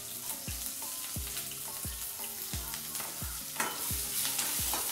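Green chillies and garlic sizzling and spitting in hot groundnut oil in an iron kadai, stirred now and then. Background music with a steady bass beat, about three beats every two seconds, runs underneath.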